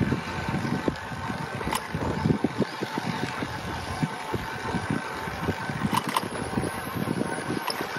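Wind rumbling and buffeting on the microphone, irregular and low, with a few sharp clicks about two seconds in and around six seconds.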